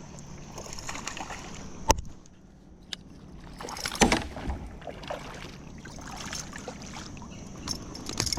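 Water splashing and sloshing at a kayak's side, with a few sharp knocks on the hull, as a freshly hooked largemouth bass is landed.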